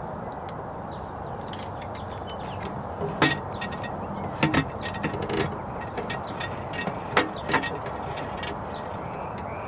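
Screws and a hand screwdriver clicking and knocking against the aluminum floor of a mailbox as the screws are put in. There are scattered light ticks, with a few sharper knocks in the middle of the stretch, over a steady background rumble.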